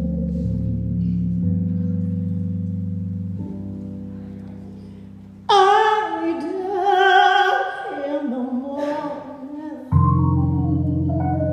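A woman singing a ballad with keyboard accompaniment. A held chord dies away over the first five seconds or so. Her voice then comes in loudly on one long note with vibrato, on the word "die", and new chords sound near the end.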